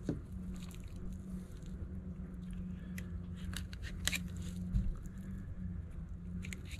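Fillet knife slicing into a flounder along its backbone, with scattered crisp clicks and crunches as the blade works through the flesh. A steady low hum runs underneath.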